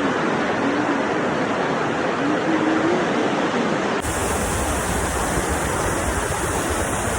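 Waterfall, a steady loud rush of falling water, with a shot change about four seconds in where the rush goes on with a slightly different sound.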